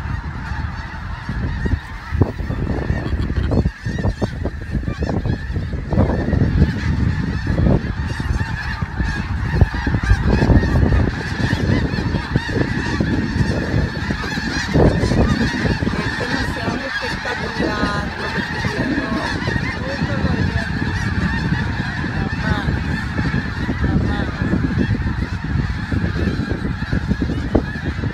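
A large flock of snow geese calling all at once: a dense, continuous din of overlapping honking calls from many birds in flight and lifting off a field. An irregular low rumble runs beneath the calls.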